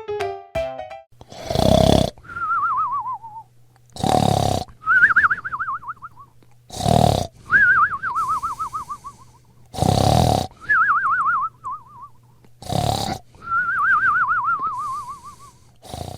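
Snoring in a regular cycle, about every three seconds: a short, harsh snore, then a wavering whistle that falls in pitch, like a whistled breath out.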